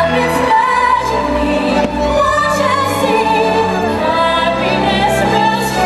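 Orchestrated Disney show soundtrack with voices singing, played over the park's outdoor speakers during a fireworks show.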